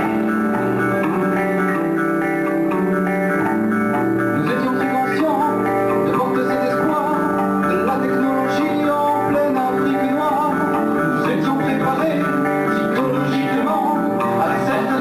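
Rock music played by a live band, with guitar to the fore.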